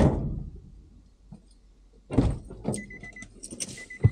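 Car door and cabin handling sounds: a sharp knock at the start, then rattling and key jangling from about two seconds in, with a repeating electronic warning beep from the car, and a second sharp knock like a door shutting near the end.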